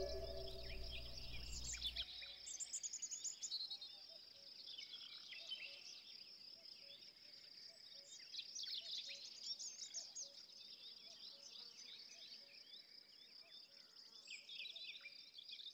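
Faint outdoor nature ambience: many short bird chirps over a steady high insect trill. A flute note dies away at the very start.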